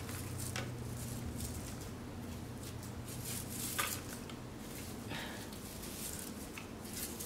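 Crinkle paper shred rustling in brief, scattered bursts as it is pulled out of a macrame hanging, over a low steady hum.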